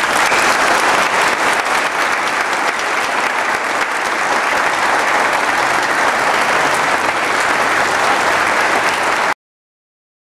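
Audience clapping in sustained applause. It breaks off abruptly about nine seconds in, where the recording cuts to dead silence.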